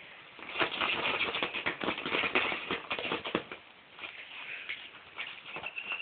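A small dog rummaging and digging inside a fabric bag: rustling and scratching of the cloth, busiest in the first half and quieter after.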